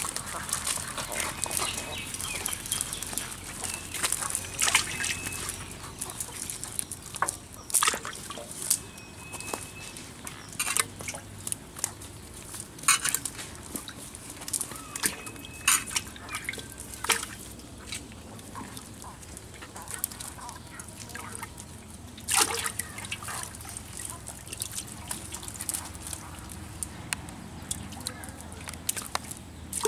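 Live fish flapping and slapping against a wet cast net and the ground as they are picked out of the mesh by hand, in sharp irregular wet slaps.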